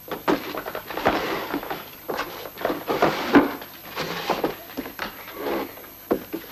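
A run of irregular wooden knocks, thumps and scuffling footsteps.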